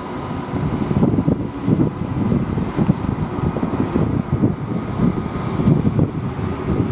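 Wind buffeting the microphone in gusts, over road traffic and a Queensland Rail NGR electric multiple-unit train running along the viaduct.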